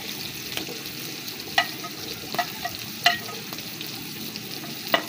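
Onions and tomatoes sizzling on a tawa griddle, with a metal spatula clinking sharply four times as spices are scraped in and stirred through.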